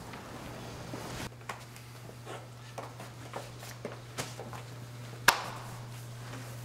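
Light footsteps and small handling taps and shuffles over a low steady hum, with one sharp click about five seconds in.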